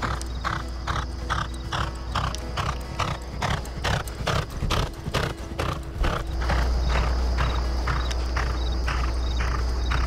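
Racehorse galloping on a dirt training track: hoofbeats in an even rhythm of about three a second. A steady low rumble grows louder about six seconds in.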